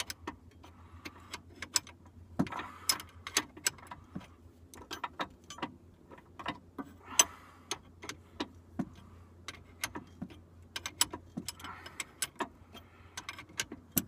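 A 3/4 inch open-end wrench clicking and clinking against the adjuster nut of a quick-disconnect sway bar link on a Jeep Cherokee XJ, as it is turned in short strokes to lengthen the link. The metal clicks come irregularly, several a second at times, with pauses between strokes.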